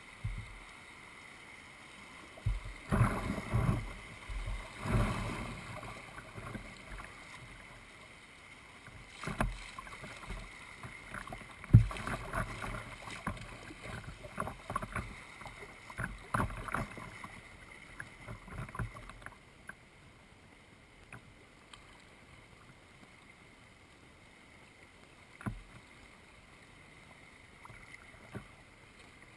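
Kayak paddling: irregular paddle splashes and drips, with a sharp knock about twelve seconds in that is the loudest sound. The strokes die away about two-thirds of the way through, leaving only a few faint drips and ticks.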